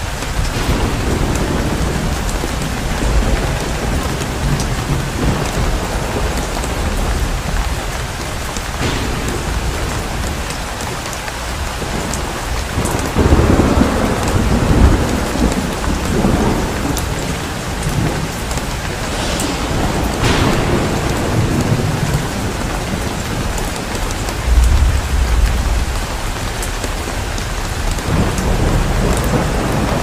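Steady rain, an even hiss throughout, with a few deeper rumbling swells, the strongest about halfway through and another later on.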